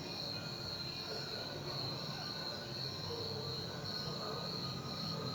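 Crickets chirping in a steady, pulsing high trill over a low, even hum.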